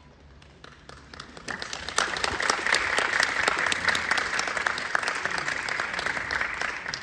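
Audience applauding, swelling in over the first two seconds and dying down near the end.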